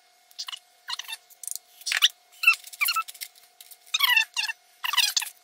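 A quick, irregular series of short, high squeaky chirps, about a dozen, each bending in pitch, over a faint steady tone.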